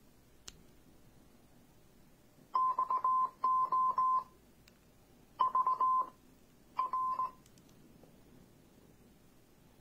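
A light click, then the MUZEN Button Bluetooth speaker sounding four short runs of rapid electronic beeps, all at one pitch.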